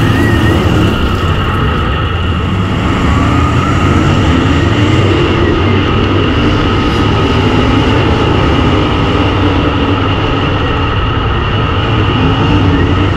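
Dirt-track race car's V8 engine running hard on the track, heard from inside the cockpit, a dense, steady engine drone mixed with wind and chassis noise.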